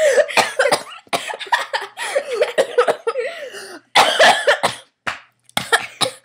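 A girl coughing hard in repeated fits, choking on a piece of pastrami that went down while she was laughing with it in her mouth. The strongest fit comes about four seconds in.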